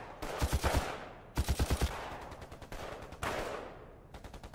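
Machine-gun fire in two short bursts of rapid shots about a second apart, each shot trailing off in an echo, followed by a weaker single report about three seconds in.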